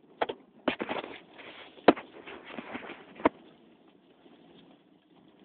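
Irregular sharp clunks from the driver side of a 1998 Plymouth Breeze, about half a dozen in the first three and a half seconds, the loudest about two seconds in, then a faint steady low sound. The cause is unknown: the wheel bearings, CV joints and axles have been checked and found fine.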